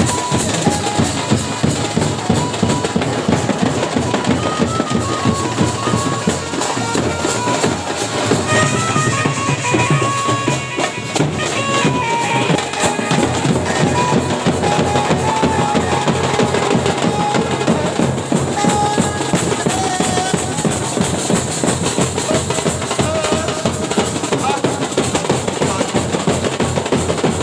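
Loud music with a steady, heavy drum beat and a melody line over it, running without a break.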